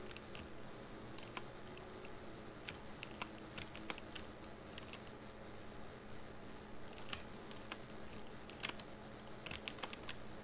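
Computer keyboard keys and mouse buttons clicking in scattered, irregular clusters, over a faint steady hum.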